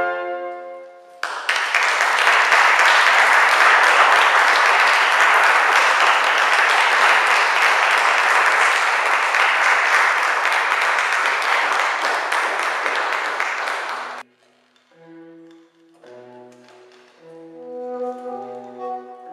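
Audience applauding for about thirteen seconds, cutting off abruptly. A saxophone quartet then starts playing softly, with quiet sustained low notes that grow louder toward the end.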